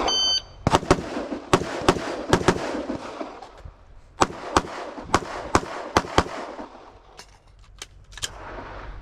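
A shot timer's short beep, then a string of gunshots in a rifle-to-pistol transition drill: a quick pair, slower aimed shots, then another fast pair, a pause of over a second about three seconds in for the switch to the pistol, and a second string of shots. Fainter shots follow near the end.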